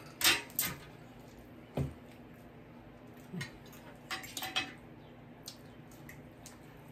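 Cutlery clinking and scraping against a plate in a few short, separate strokes, two near the start, one about two seconds in and a small cluster past the middle, while food is eaten.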